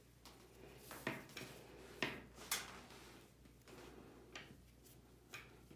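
Twisted macrame cord rubbing and swishing as hands pass the strands over and under and pull a square knot tight, a handful of faint short swishes.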